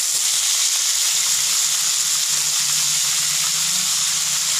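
Washed water spinach (kangkung) going into a wok of hot oil, setting off a loud, steady sizzle.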